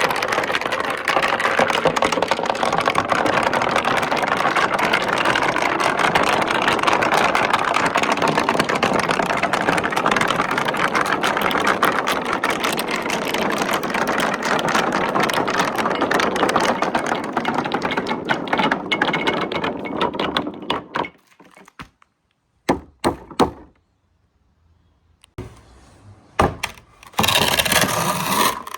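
Many marbles rolling and clattering down a four-tier marble-run slope, a dense continuous rattle of clicks. About 21 seconds in it thins to scattered single clicks as the last marbles finish, with a short burst of clatter near the end.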